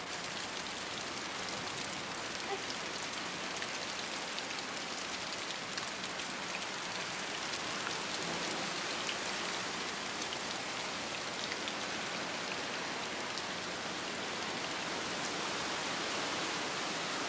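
Steady rain falling, an even hiss flecked with faint ticks of drops.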